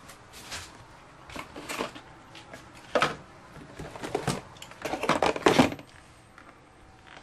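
A cardboard box and other objects handled on a desk: irregular scrapes, rustles and knocks, with a sharp knock about three seconds in and a loud cluster of knocks and scrapes around five seconds in.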